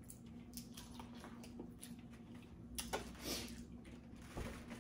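Faint eating sounds of a seafood boil: scattered clicks and wet smacks of chewing and handling shellfish, with a sharper click about three seconds in followed by a brief slurp-like hiss.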